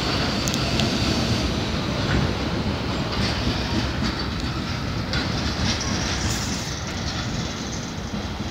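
Coal train wagons rolling past on the rails, a steady rumble with the wheels clacking over the rail joints, slowly fading toward the end.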